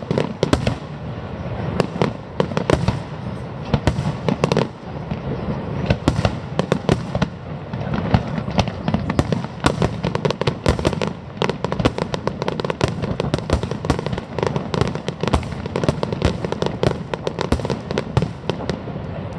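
Fireworks display: a dense, continuous run of shell bursts and crackling, many sharp bangs every second with no pause.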